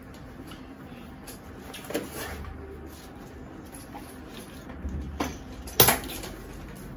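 A fabric softbox being handled and fitted onto its light stand: rustles and light knocks, with one loud sharp click near the end.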